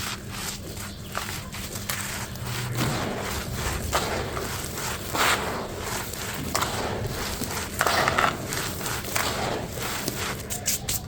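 Brittle hole-shaped crumble blocks crushed and crumbling, giving irregular crunches, the loudest about five and eight seconds in.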